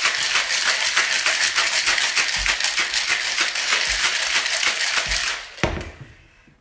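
Ice rattling inside a metal cocktail shaker being shaken hard, a fast even rhythm of about five strokes a second. The shaking stops about five seconds in, and a single knock follows as the shaker is set down on the counter.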